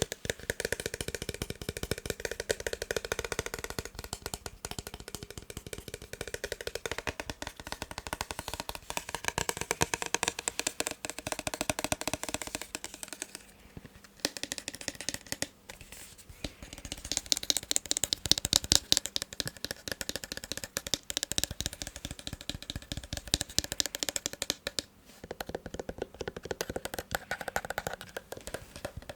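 Fast, dense tapping on a massage gun's casing, the tone of the taps changing as different parts are struck, with two short pauses, one about halfway through and one near the end.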